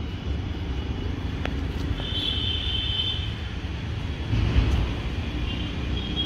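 Steady low outdoor rumble, with a brief high-pitched tone lasting about a second, about two seconds in.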